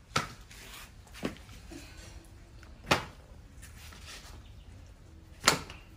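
A baby monkey biting into a crisp red java apple: four sharp crunches spread over several seconds, the last the loudest.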